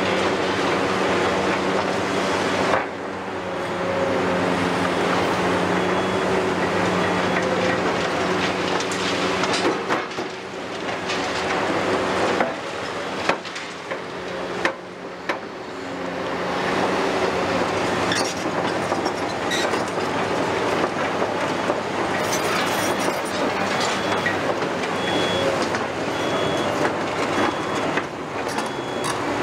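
Tracked demolition excavators working: diesel engines running steadily under hydraulic load, with metallic track clatter and a few sharp knocks of steel and rubble. A short high beep repeats about once a second over the last third.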